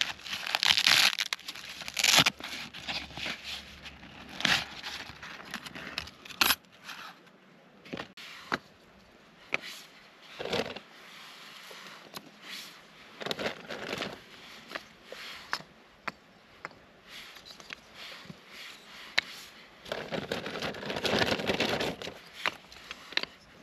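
Camp gear being handled: a folding metal wood stove drawn from its fabric pouch, then split kindling sticks knocked and stacked on the ground. Scattered clicks and light wooden knocks with bursts of rustling.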